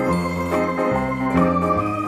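Background music: a bright electronic organ or keyboard tune over a bass line that changes note about every three-quarters of a second.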